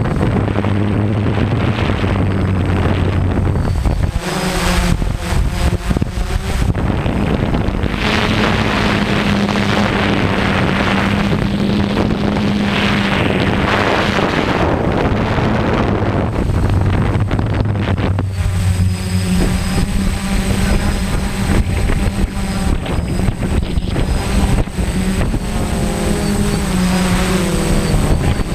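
Quadcopter drone's motors and propellers whirring, heard through its onboard camera, with wind on the microphone. The hum steps up in pitch about four seconds in and drops back down near eighteen seconds as the throttle changes.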